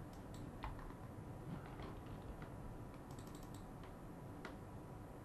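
Faint, scattered clicks and taps of a computer keyboard and mouse, with a quick cluster of clicks about three seconds in.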